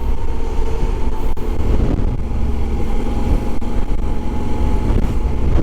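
Honda Africa Twin 1100's parallel-twin engine running steadily while riding, under a heavy low rumble of wind on the helmet-mounted microphone.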